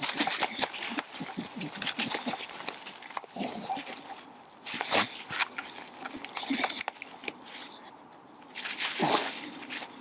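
Staffordshire bull terrier gnawing and biting on a mossy stick: a run of sharp wood cracks and crunches with dry leaves rustling, and snuffling breaths, two of them louder about five and nine seconds in.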